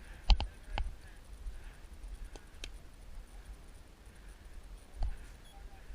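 Paintball marker shots: sharp pops, two close together near the start, a couple of fainter ones around two and a half seconds in, and another about five seconds in.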